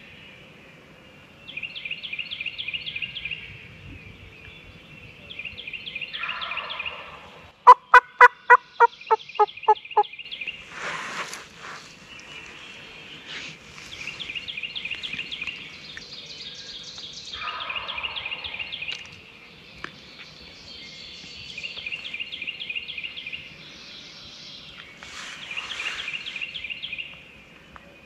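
A close, loud series of about eight turkey yelps, evenly spaced and fading in loudness over about two and a half seconds. A songbird's high trill repeats every few seconds throughout.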